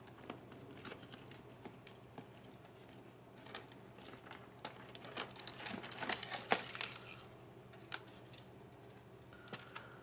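Light clicks and rattles of a Toshiba Satellite laptop motherboard being worked loose and lifted out of its plastic chassis by hand, with a cluster of louder clicks a little past halfway.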